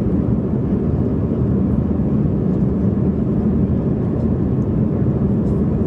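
Steady, loud cabin rumble of a Boeing 737 MAX 8 airliner in flight: engine and airflow noise heard from an economy seat, with a few faint ticks over it.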